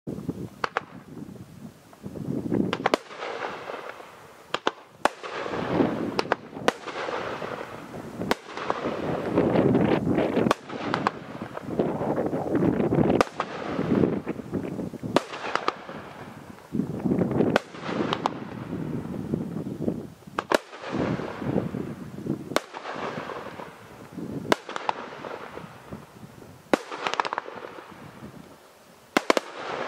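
'Over The Top' multi-shot aerial firework going off: a long string of sharp bangs every second or two, some in quick pairs, with a rushing, crackling noise between them.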